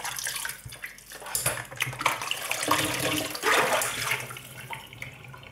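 Tap water running and splashing unevenly as a whole raw chicken is rinsed by hand in a basin.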